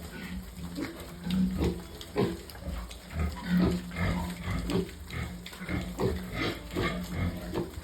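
Mini pigs grunting: a steady run of short, low grunts, about two a second.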